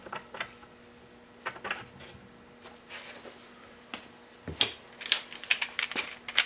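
Irregular metallic clicks and clinks of a socket and torque wrench being handled and fitted onto a threaded fitting, sparse at first and coming thick and fast over the last couple of seconds.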